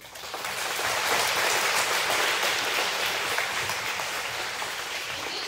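An audience of schoolchildren applauding: the clapping swells quickly, holds, then thins out toward the end.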